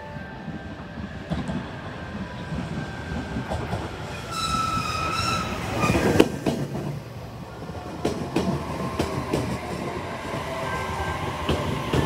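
JR Kyushu 815-series electric commuter train pulling into the station alongside the platform, its running noise building as it passes close by. About four seconds in, a high-pitched tone sounds for about a second. From about eight seconds on, the wheels click over the rail joints as it slows.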